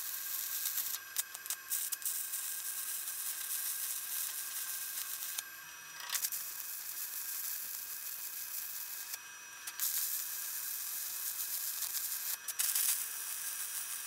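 Stick-welding arc burning an old 3/32-inch 7018 rod: a steady crackling hiss that drops out briefly twice, about five and nine seconds in, and then resumes.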